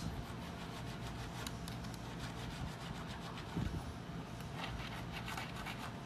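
Flat needle file rubbing along the edges of a freshly cut brass key in a series of quick, light strokes, taking off the burrs left by cutting.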